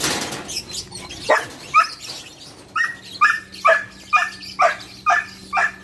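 A dog barking repeatedly: two single barks, then from about halfway a quick, even run of barks at about two a second.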